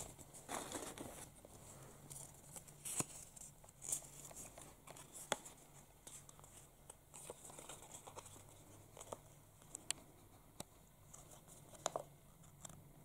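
Faint rustling and crinkling of paper and tape with scattered small clicks, as a homemade paper sticker is handled and peeled in the fingers.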